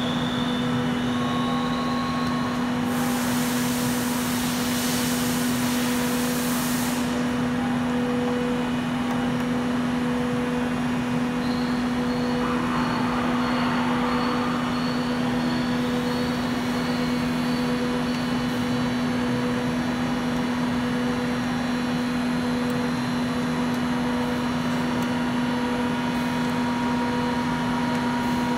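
Steady low machine hum holding one pitch throughout, with a high hiss for a few seconds near the start.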